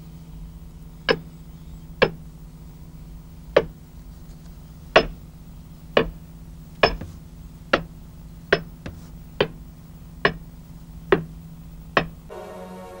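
Two axes chopping into a standing tree trunk in turn: about a dozen sharp chops, roughly one a second and coming a little faster toward the end, over a steady low hum.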